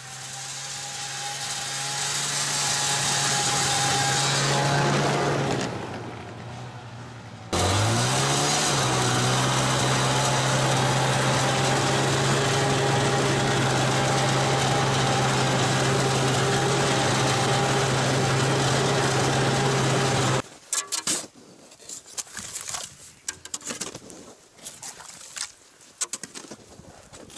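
A two-stroke snowmobile passes, its engine growing louder and then fading. Then the snowmobile is heard from the seat: the engine revs up and holds a steady drone for about twelve seconds. It cuts off suddenly to uneven scraping and chopping strikes of a shovel digging in snow on lake ice.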